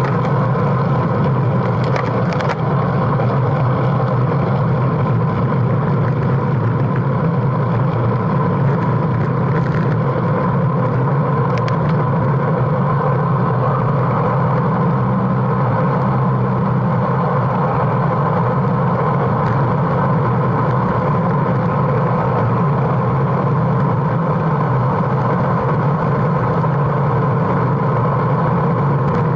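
Steady wind rush and road noise on a bicycle-mounted action camera's microphone, riding at about 35–40 km/h, with a few faint clicks.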